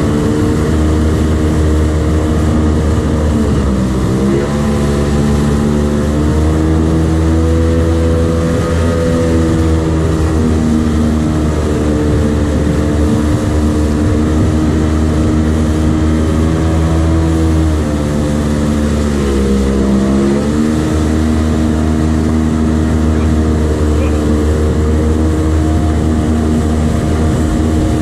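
Outboard jet boat motor running at speed under way, with water and wind rushing. The revs dip and pick up again twice, about four seconds in and again about two-thirds of the way through.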